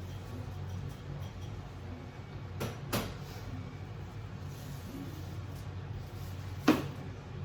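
Two sharp knocks close together about three seconds in and a louder single knock near the end, over a steady low hum.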